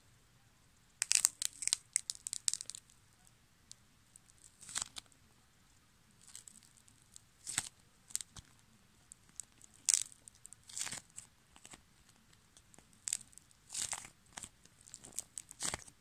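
Hardened varnish crust on a soft homemade pink donut figure crackling and crinkling as fingers squeeze and crush it. A quick run of sharp crackles comes about a second in, then single crackles every second or two, as the crust cracks the way it is meant to.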